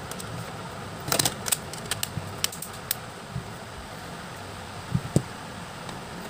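Small plastic clicks and taps as a smartphone battery and back cover are fitted by hand: a quick cluster of clicks about a second in, a few single clicks after, and two soft knocks near the end, over a steady fan-like hum.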